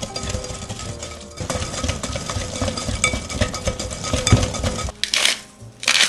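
Wire whisk beating fast in a glass mixing bowl, its wires scraping and clicking on the glass as cocoa powder is worked into a thick wet mixture. In the last second, a few short grinding bursts from a hand salt grinder.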